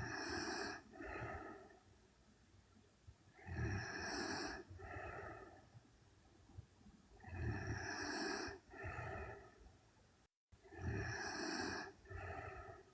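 A young woman snoring in her sleep: four breaths about every four seconds, each a longer snore followed by a shorter, softer one. The sound cuts out completely for a moment just before the last breath.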